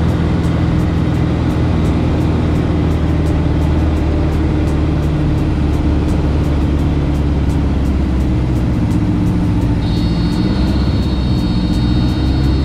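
Light ski-equipped aircraft's piston engine and propeller running steadily and loud, heard from inside the cabin as the plane moves across glacier snow. A high steady tone comes in near the end.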